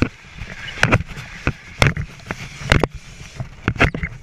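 Irregular knocks and thuds, about eight in four seconds, over a steady low rumble: a firefighter's gloved hand, hose line and turnout gear bumping and rubbing close to a helmet camera.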